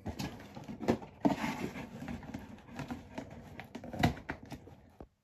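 Cardboard toy box and its insert being handled as a toy is taken out: irregular rustling and scraping with scattered clicks and knocks, a louder knock about a second in and another near the end.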